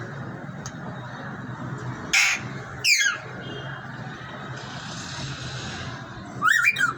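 Pet parrot giving harsh squawking calls: one about two seconds in, a falling call a moment later, and a quick run of short calls near the end.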